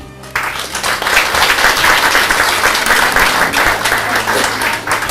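Audience applauding: dense clapping from many hands that breaks out suddenly just after the start and begins to thin near the end.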